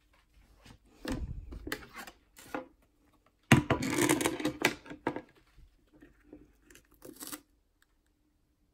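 Hands working at a soldering bench: irregular short scratchy scrapes, rustles and light knocks as parts and tools are handled, loudest in a busy cluster a little past the middle, over a faint steady low hum.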